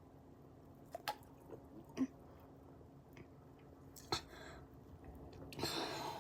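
Quiet mouth and drinking sounds from someone gulping Coke Zero: a few wet clicks and swallows, then a short louder rush of breathy noise near the end.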